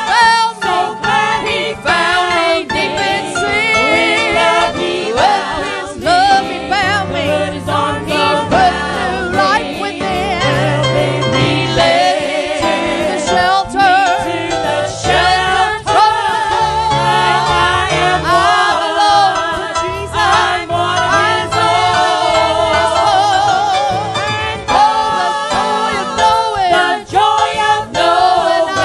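Gospel hymn sung with vibrato over instrumental accompaniment, with a bass line stepping from note to note.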